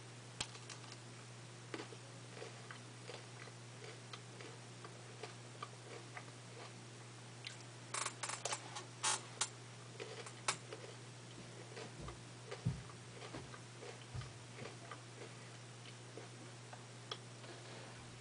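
A person chewing a Drumstick ice cream cone: scattered small crunches and mouth clicks from the wafer cone, with a cluster of louder crunches about halfway through, over a steady low hum.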